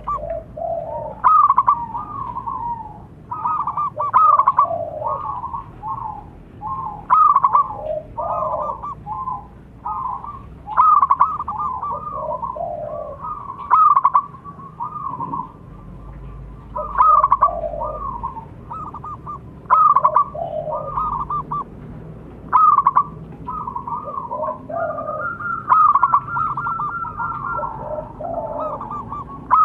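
Zebra doves (perkutut) singing their fast, staccato cooing trills. A phrase starts about every three seconds, and the phrases often overlap at a higher and a lower pitch, as when more than one bird calls.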